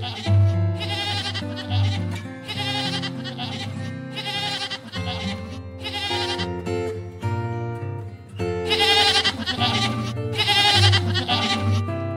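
Goats bleating, a string of short wavering calls with a pause in the middle, over instrumental background music.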